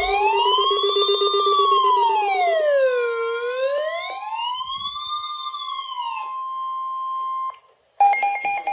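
Emergency Alert System alarm for a severe thunderstorm warning: a steady high warning tone under a wailing siren that sweeps slowly up and down twice, with a lower buzzing tone for the first few seconds. The siren stops after about six seconds and the steady tone a little later; after a brief gap, a short run of stepped electronic beeps starts just before the end.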